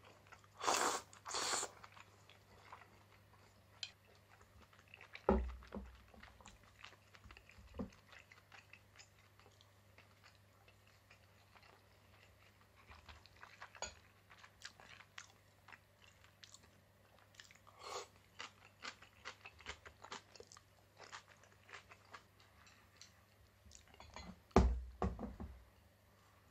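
A person eating a meal: quiet chewing and crunching with many small clicks and taps through the second half. A few dull knocks sound on the table, the loudest near the end.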